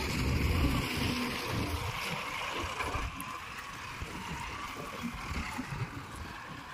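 Mahindra tractor's diesel engine running under load while its front loader scoops a bucket of sand and lifts it.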